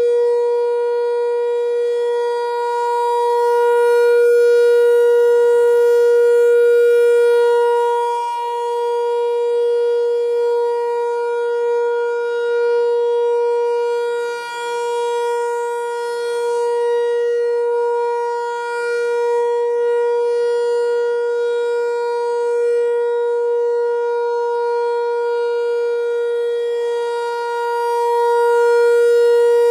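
ASC T-128 rotating tornado siren sounding its steady single-tone Alert signal during a monthly test. The pitch holds level, and the loudness swells and fades as the rotating head sweeps past.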